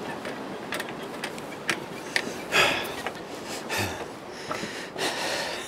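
Footsteps on a walking track, about two steps a second through the first couple of seconds. The walker breathes audibly twice, once near the middle and again near the end.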